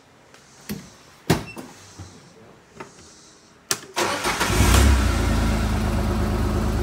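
A few knocks and clicks, then the Kawasaki Mule Pro FXT's three-cylinder engine cranks and fires about four seconds in. It picks up briefly and settles into a steady idle on fresh oil.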